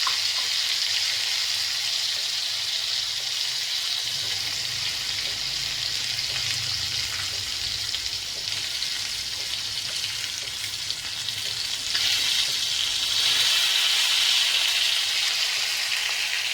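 Crab pieces frying in a pan, a steady sizzle that grows louder about twelve seconds in.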